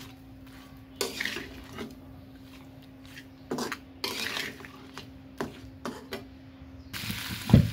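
A flat metal spatula scraping and knocking against an aluminium kadai while fried prawns, potatoes and pointed gourd are stirred in masala, in short scattered strokes over a faint steady hum. Near the end a brief hiss comes up, and a heavy knock of the spatula on the pan is the loudest sound.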